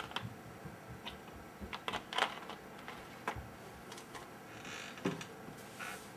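Irregular light clicks and taps from small objects being handled at a workbench, with a brief soft hiss about four and a half seconds in.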